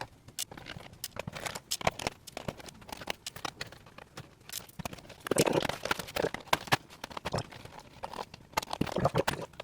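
Plastic clicking, crackling and scraping as a laptop's top case is worked loose from the chassis, with many short clicks and a couple of denser stretches of rustling scraping.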